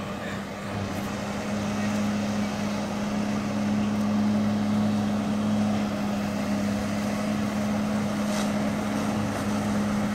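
Personal watercraft engine running at steady high power to drive a flyboard's water jets, a constant droning hum over the rushing noise of the spray, getting a little louder about a second and a half in.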